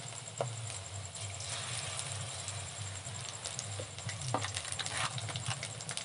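Besan-battered chicken pakoras frying in hot oil in a kadai: a steady sizzle full of small, irregular crackling pops, over a low steady hum.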